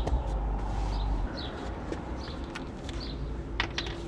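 A small bird chirping outdoors, short high falling notes repeating about once a second. A low rumble stops about a second in, and a couple of sharp clicks come near the end.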